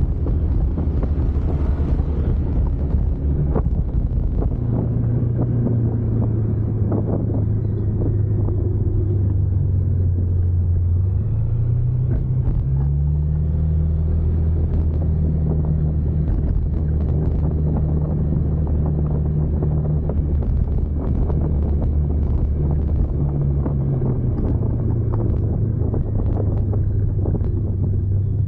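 Motor vehicle engine running while driving, its low hum stepping up and down in pitch a few times as the engine speed changes, with wind rumbling on the microphone.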